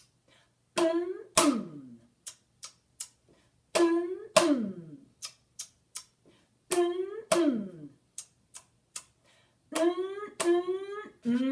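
Plucked string instrument playing pairs of notes about every three seconds, the second note of each pair sliding down in pitch, over light, sharp taps at about three a second.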